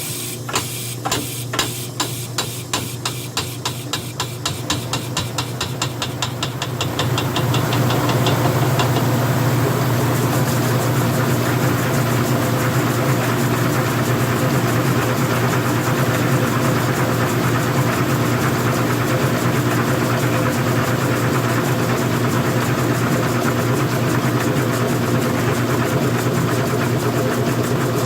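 Old-style front-loading washing machine's drum and motor speeding up: a rhythmic knocking grows faster over the first several seconds until it blends into a steady, loud, low whirring hum with a hiss as the drum runs at speed.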